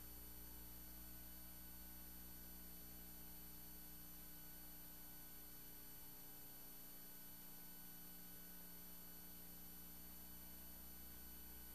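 Near silence: a faint, steady hum with no other sound.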